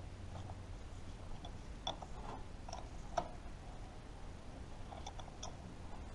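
Scattered faint clicks and small taps from gloved hands handling parts and a rag on the lathe, with the sharpest tap about three seconds in, over a faint low hum.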